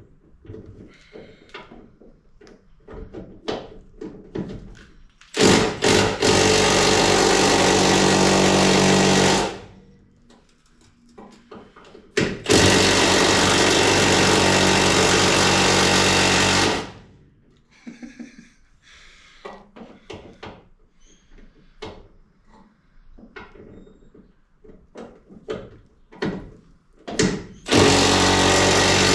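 A power tool run in three bursts of several seconds each, the last one short and near the end, with short knocks and clanks of tools and metal in between.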